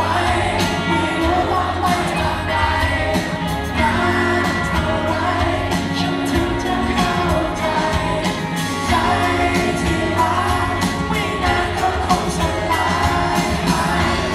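Live band playing a song, with a lead singer's vocals over bass, guitars and a steady drum beat.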